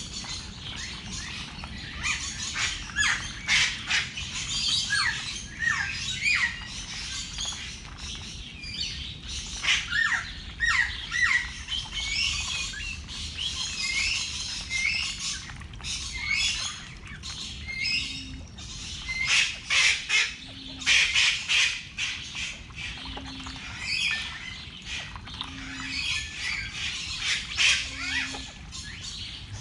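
Birds chirping and calling, many short overlapping calls, some sliding down in pitch. From about halfway, a short low tone repeats about every two and a half seconds beneath them.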